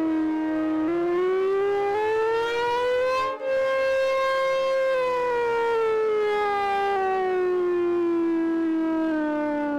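Super Sirex civil defense siren sounding the attack signal: a loud wail that rises over a couple of seconds, holds at the top, then slowly falls, with a brief dropout as it reaches the top.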